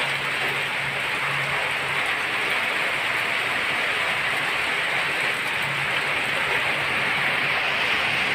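Steady rain falling on the banana leaves and plants, an even hiss that does not let up.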